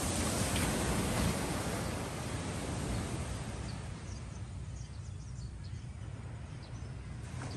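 Small waves breaking and washing up a sandy beach: a steady rush that is loudest over the first three seconds and then eases off.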